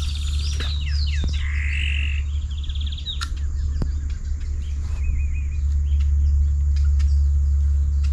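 Several wild birds calling from the riverside woods: quick trills, chirps and short falling notes, one after another. Under them runs a steady low rumble.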